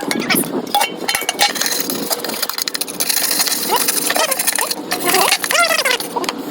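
Time-lapse, sped-up sound of old gasket being scraped off a metal automatic transmission pan: a fast jumble of scrapes and clicks, with squeaky chirping glides about five seconds in.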